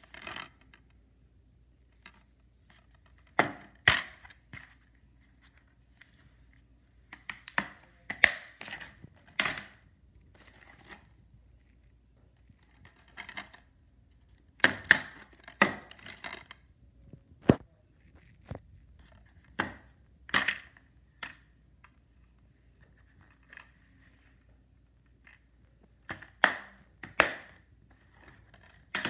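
Plastic DVD cases being handled and turned over: scattered sharp clicks and knocks, some with a brief rustle, with quiet gaps between them.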